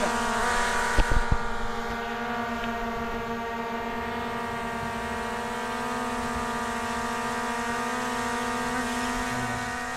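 Camera drone's propellers buzzing at a steady pitch while it hovers. A few sharp knocks about a second in.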